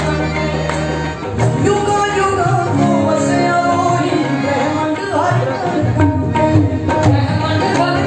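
A woman singing a devotional shabad into a microphone, with live instrumental accompaniment and a percussion beat.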